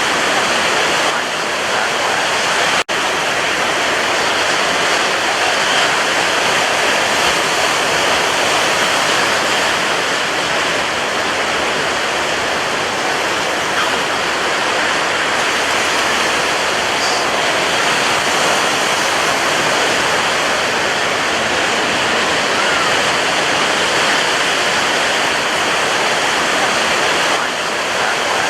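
Sea waves breaking as a steady, dense wash of surf, with a momentary dropout about three seconds in.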